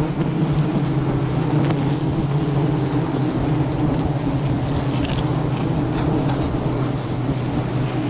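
A mass of honeybees buzzing in a steady, unbroken hum, with wind rumbling on the microphone underneath.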